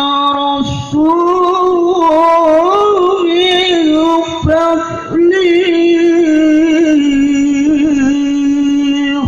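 A single voice singing long, ornamented held notes with wavering pitch, in a chant-like style. It breaks off briefly about half a second and four and a half seconds in, and stops sharply near the end.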